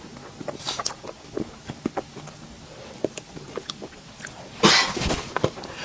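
Close-miked eating sounds: chewing and small, sharp mouth clicks on a sweet dessert. About four and a half seconds in comes a louder half-second burst of noise.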